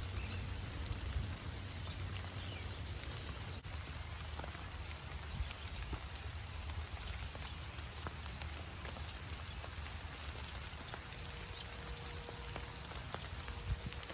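Steady rain falling, with scattered individual drops ticking here and there.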